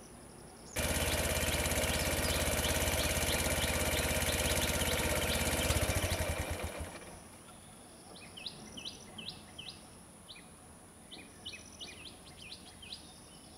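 An engine runs steadily, starting abruptly about a second in, then winds down and stops around six to seven seconds in. Birds chirp through and after it over a steady high insect whine.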